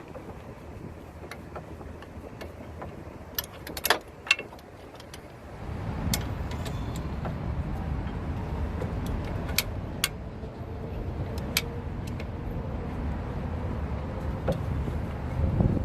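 Scattered sharp metal clinks, two of them loud around four seconds in. From about six seconds in a steady low rumble runs under them, like a vehicle running nearby, swelling just before it drops off at the end.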